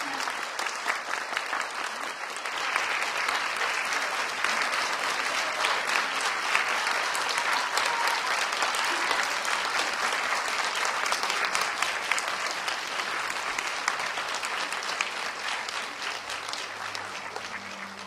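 Audience applauding: dense, steady clapping that swells about two seconds in and tapers off near the end.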